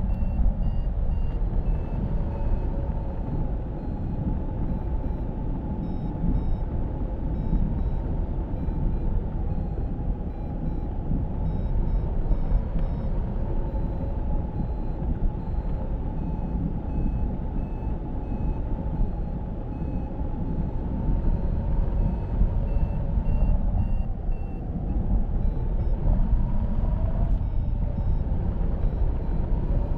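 Airflow rushing over a hang glider's wing-mounted camera microphone in flight, a steady deep wind roar. Over it runs a steady whistling tone that wavers slightly in pitch, with faint short high beeps now and then.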